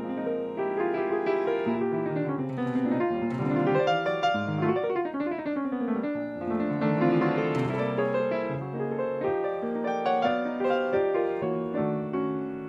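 Piano music playing, a steady flow of notes with quick runs up and down the keyboard.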